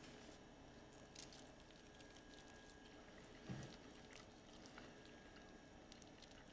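Near silence with faint wet clicks and smacks of people chewing chicken wings, and one soft thud about three and a half seconds in.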